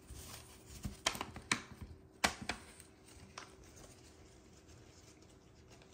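Trading cards being gathered up and restacked after the piles fell over: about half a dozen light clicks and taps in the first three and a half seconds.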